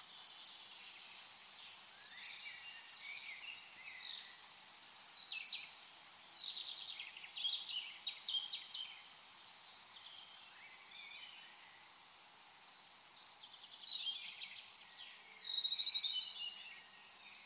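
Bird song: high chirps and quick falling trills in two long runs, one from about two seconds in and another from about thirteen seconds in, over a steady hiss.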